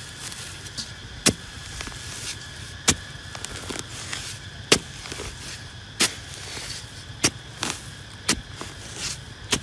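Metal-bladed hand digging tool chopping into hard, dry earth. About six sharp strikes come one to two seconds apart, with softer scrapes and thuds between them, over a steady high-pitched background drone.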